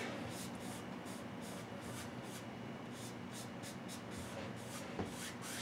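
A large flat bristle brush stroking oil paint onto a wet canvas: a soft, rhythmic scratchy swishing, about three strokes a second, with a light knock near the end.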